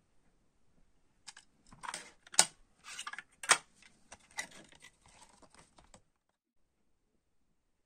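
Hands handling a cassette tape and unfolding its paper inlay card: sharp plastic clicks and paper rustling, two clicks standing out, before the sound cuts off suddenly about six seconds in.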